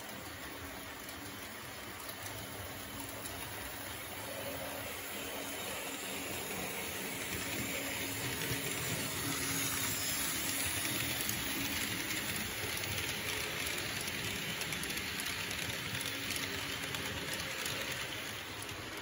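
H0-scale model freight train running past on the layout's track, a steady rolling noise of wheels on rails that grows louder as the locomotive and wagons come close, then eases off near the end.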